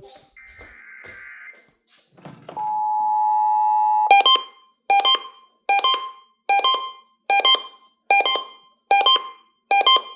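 Emergency Alert System tones. About half a second in comes a short screechy data burst (the SAME header). About two and a half seconds in, the steady two-tone attention signal sounds for about a second and a half. It is followed by a run of harsh, repeated beeps about every 0.8 seconds.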